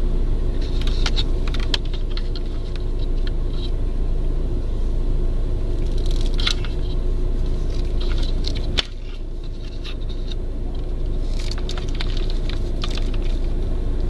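Steady low hum of the car's engine idling, dropping a little about nine seconds in. Over it are scattered small clicks and rustles from loom wires and needle-nose pliers being handled behind the dashboard head unit.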